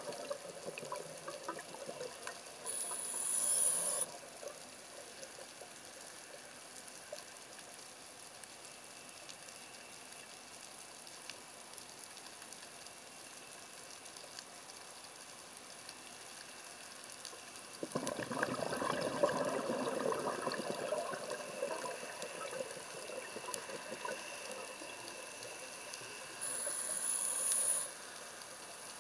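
A scuba diver breathing through a regulator, heard underwater. A short hiss of inhaled air comes about three seconds in and again near the end. A few seconds of bubbling, gurgling exhaled air come around the middle, over a steady faint underwater hiss.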